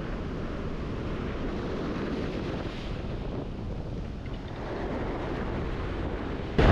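Ocean surf washing over a rock ledge, with wind buffeting the microphone: a steady rushing noise that suddenly gets much louder just before the end.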